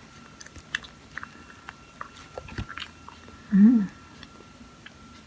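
Close-up chewing of soft cream-filled chocolate bread: small wet mouth clicks and smacks. A short hummed "mm" rises and falls about three and a half seconds in.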